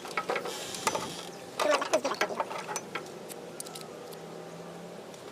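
Rapid clicks and clatter of metal parts being handled and worked on, sped up to double speed, with a brief hiss about half a second in.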